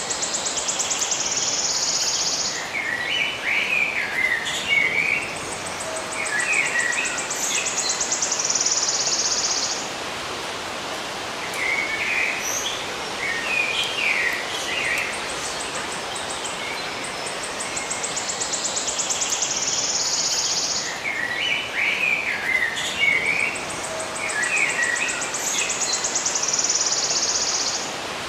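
Birds chirping in short clusters, alternating with long high buzzy trills, over a steady background hiss. The same sequence of trills and chirps plays twice, about 18 seconds apart.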